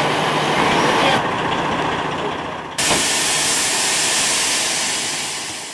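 Steady rushing, hissing outdoor noise with no clear source. It changes abruptly twice, about a second in and near the middle, then fades out at the very end.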